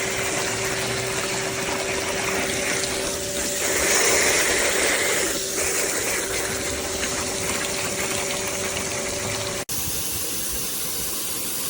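High-pressure water spraying from a pressure washer gun: a steady loud hiss of spray over the hum of the running pump. The sound changes abruptly about ten seconds in, leaving only the spray's hiss.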